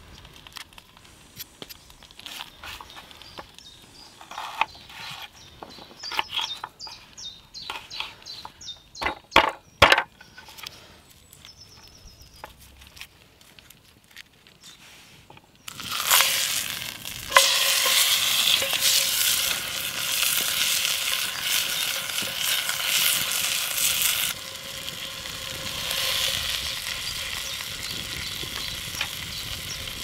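Small knife clicking and tapping on a wooden chopping board while shallots are peeled and halved. Just over halfway, a leg of lamb goes into hot oil in a cast iron Dutch oven and starts sizzling loudly as it browns.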